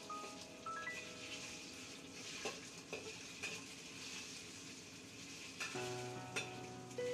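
Meat and garlic sizzling in a hot wok while a metal spatula stirs and scrapes them, with a few sharp clinks of the spatula against the wok.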